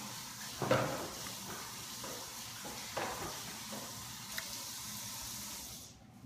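Water running steadily from a tap, shut off abruptly near the end.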